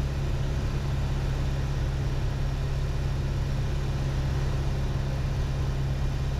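Piper Warrior's four-cylinder Lycoming engine and propeller droning steadily in flight, throttled back for the approach.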